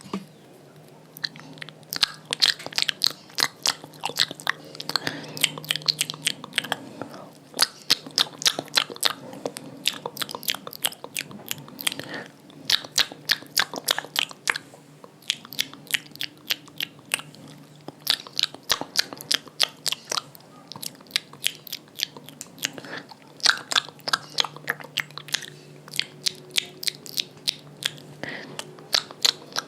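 Close-miked ASMR mouth sounds from spit painting: rapid wet clicks, smacks and spit sounds in fast runs of a few seconds, broken by short pauses.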